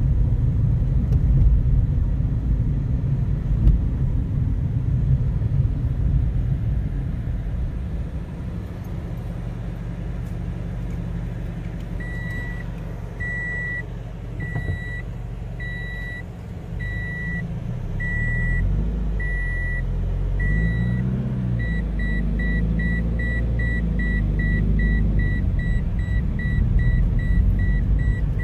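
Scion FR-S's flat-four engine running, with road rumble, heard inside the cabin; the engine pitch rises and falls about two-thirds of the way through. About twelve seconds in, a dashboard warning chime starts beeping about once a second, then speeds up to about three beeps a second for the last several seconds.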